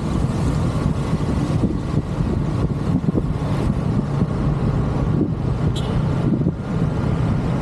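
Steady road and engine noise from a vehicle moving along a city street.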